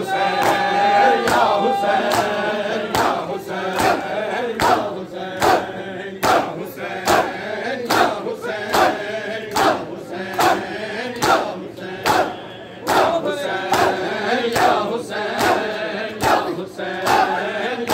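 A crowd of men chanting a noha in unison while beating their chests with open hands (matam), the slaps landing together on a steady beat a little slower than one a second.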